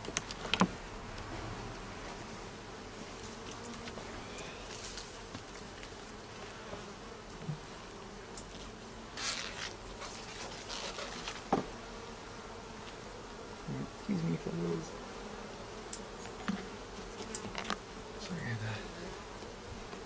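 Honeybees buzzing around an open hive during an inspection, a steady hum, with a few sharp knocks and clicks and a short hiss about nine seconds in.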